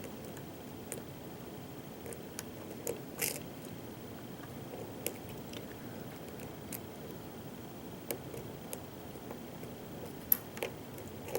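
Scattered faint metallic clicks and ticks of a lock pick working the pins of a pin-tumbler lock under tension, irregularly spaced with a sharper click about ten seconds in. The core is held in a deep false set while the picker tries to lift a low-cut first pin high enough to set.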